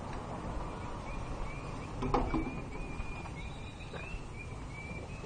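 Outdoor background noise with a run of short, high chirps repeating about three times a second, typical of a small bird, starting about two seconds in. There is a brief muffled sound just after the chirps begin.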